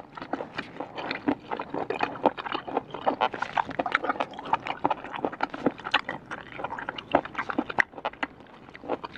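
Close-miked chewing of chewy smoked snail meat: a rapid, irregular run of wet smacks and clicks from the mouth and lips.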